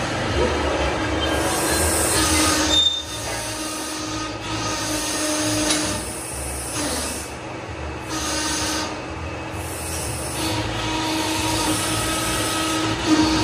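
Semi-automatic hydraulic paving-block press running, a steady machine hum with a held tone over dense mechanical noise. The noise drops briefly about three seconds in and eases a few more times, as the machine's cycle moves on.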